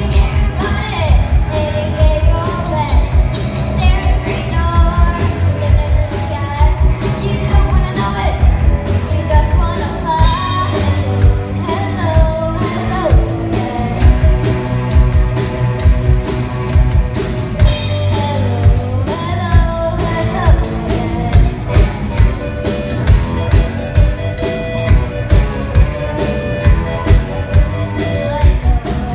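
A live rock band plays: a child sings into a microphone, amplified over electric guitars and a drum kit keeping a steady beat.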